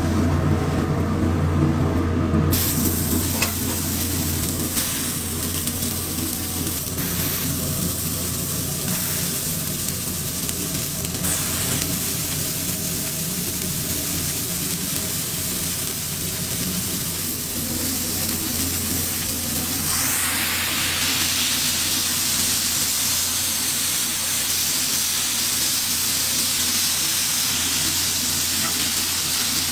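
Food sizzling on a hot, oiled flat-top griddle as burger buns toast and beef patties are smashed, a continuous frying hiss over a steady low hum. The sizzle grows louder about two-thirds of the way through.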